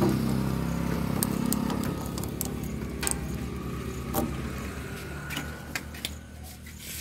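An engine running with a steady, pulsing low rumble that slowly fades, while metal clicks and clinks come from a tractor's fuel-tank filler cap being screwed shut.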